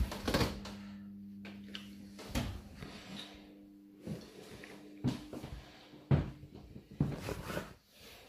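Several knocks and clunks, the first like a dishwasher door being pushed shut, over a steady low electrical hum that stops near the end.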